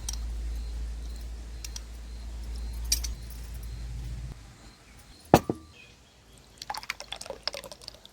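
Glassware clinking: a sharp glass knock with a brief ring about halfway through, then a quick run of small clinks near the end. A low steady hum runs under the first half and cuts off about four seconds in.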